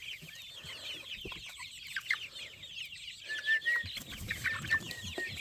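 A flock of chickens clucking and chirping, many overlapping calls, with a run of short, higher peeps in the second half.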